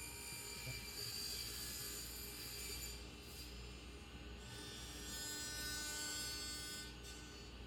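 A power tool's electric motor running with a buzzing hum and a high hiss, easing off twice.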